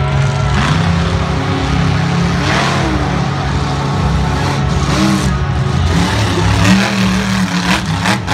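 Monster truck engine running loud and revving, its pitch rising and falling as the truck drives the dirt arena. A sharp bang near the end.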